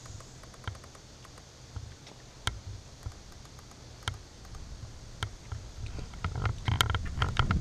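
Road bicycle riding on pavement, heard from a handlebar-mounted action camera: low wind and road rumble with scattered sharp clicks and rattles from the bike and camera mount. The clicks come thicker and the rumble louder in the last second or two.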